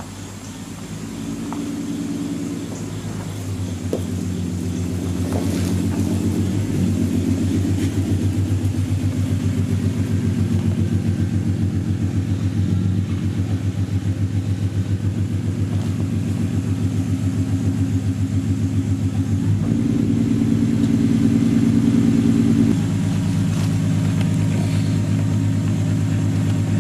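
2008 Ford Mustang's 4.0 L V6 with a Cherry Bomb glasspack exhaust running as the car is driven slowly across the yard: a steady, pulsing exhaust rumble that grows louder over the first several seconds as the car comes close. The note shifts about twenty seconds in.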